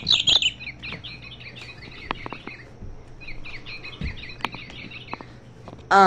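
Recorded blue grosbeak song playing from the small speaker of a squeezed Wild Republic Audubon plush bird. Two high warbling phrases come with a pause of about a second between them, with a few faint handling clicks.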